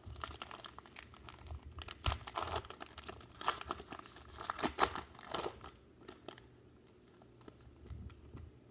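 Foil wrapper of a pack of baseball cards being torn open and crinkled by hand, a dense crackling that thins to a few faint rustles about six seconds in.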